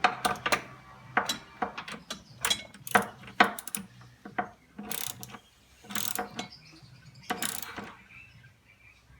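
Ratchet wrench clicking in short, uneven strokes as the jet pump's mounting nuts are tightened and torqued. The first few seconds hold quick strokes close together, then a few slower, longer strokes.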